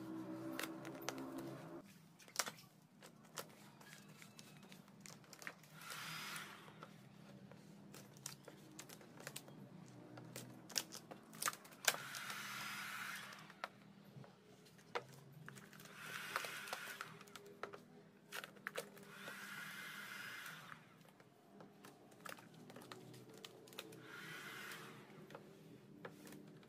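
Vinyl wrap film being rubbed down with a felt-edged squeegee and handled on a scooter's plastic body panel: short scraping strokes of a second or two each, every few seconds, with crinkling crackles and small clicks of the film in between.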